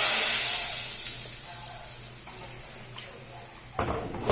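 Hot tadka (oil with Kashmiri chillies and cumin) hitting cooked masoor dal, a loud sizzle that fades away over about two seconds. A few clattering knocks near the end.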